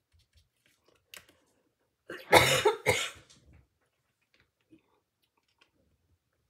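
A woman coughing: one short cough about a second in, then a loud burst of coughs near the middle.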